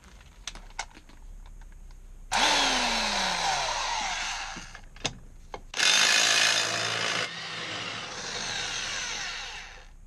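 Handheld electric impact wrench run on a bolt of the rear shock absorber mount to loosen it. It runs in three stretches: one of about two seconds with a falling pitch, a short loudest one past the middle, and a longer, quieter one that stops just before the end. Light clicks of tools come before the first run.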